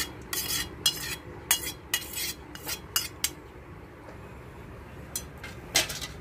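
Perforated steel skimmer scraping and clinking against a steel pan as thick tamarind pulp is wiped off it into the pan. The sharp metal strokes come in a quick run over the first three seconds, then there is a lull and one more clink near the end.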